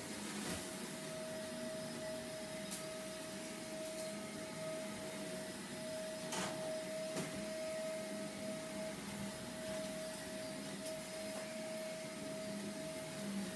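Vacuum cleaner running steadily, a continuous motor whine over a hiss of airflow. A few faint clinks of kitchenware, including about six seconds in.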